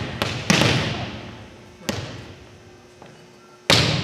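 A volleyball being struck by hands and arms four times, sharp smacks that ring out and die away slowly in a large gym; the hits about half a second in and near the end are the loudest.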